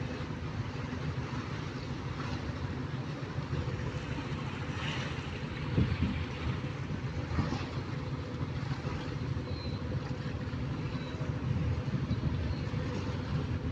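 A river cruise motor ship's diesel engines running with a steady low hum as it pulls away from the quay, with wind on the microphone. A couple of brief knocks come about six and seven and a half seconds in.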